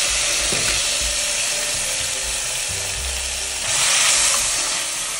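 Chopped onions sizzling in hot oil in a kadhai as a wooden spatula stirs them; the frying hiss is steady and grows a little louder for a moment about four seconds in.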